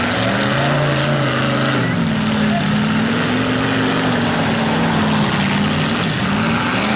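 Demolition derby car engines revving, their pitch rising and falling as the cars accelerate and back off, over a steady loud din.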